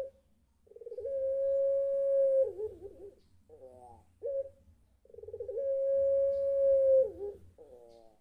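Young ringneck (Barbary) dove, a 'puter', giving two long drawn-out calls: each opens with a quick stutter, holds one steady note for about two seconds, then breaks into a wavering tail, with short wavering notes between the two calls. This is the drawn-out 'crying' call that the keeper takes for the bird calling its mate.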